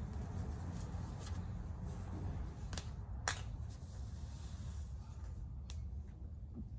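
Light handling and rustling of small objects, with a few sharp clicks, the loudest a little past the middle, over a steady low hum.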